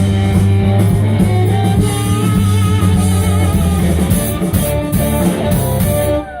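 Live blues band playing, with electric guitar, bass and drums; the music drops away sharply near the end.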